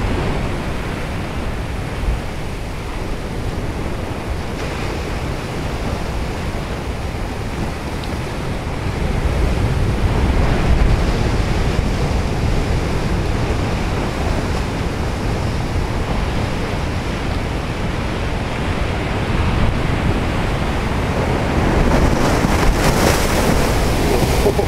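Ocean surf breaking on a rocky reef and washing over the flat rock shelf, with wind buffeting the microphone. The surf swells louder about nine seconds in and again near the end.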